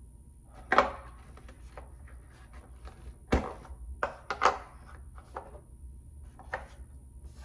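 Small plastic GoPro mount parts being handled and pressed into the moulded insert of a hard camera case on a tabletop: a series of irregular clicks and knocks, the loudest about a second in.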